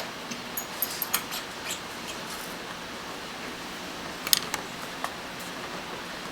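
Light clicks and taps of small hand tools on a workbench, a quick run of them in the first couple of seconds and a sharper cluster a little past four seconds, over steady room hiss.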